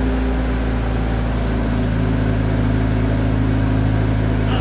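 Large counterbalance forklift's engine running steadily.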